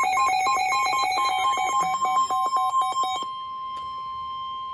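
Electronic alert tones ahead of a NOAA Weather Radio severe thunderstorm warning. A weather alert radio's alarm beeps in a fast two-tone warble, which stops about three seconds in and leaves a single steady tone sounding alone.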